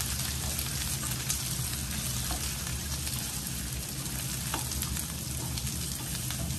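Sliced onions sizzling in hot mustard oil in a non-stick frying pan as they are sautéed toward soft, stirred with a wooden spatula that clicks and scrapes against the pan now and then.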